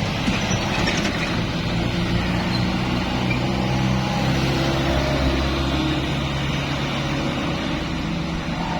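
Tour bus engine running as the bus passes, a steady low hum that grows louder toward the middle and fades near the end.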